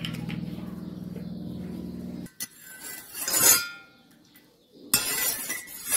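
A steady low hum that cuts off about two seconds in, followed by a metal spoon clinking and scraping against a stainless steel pot of olive oil and melted butter.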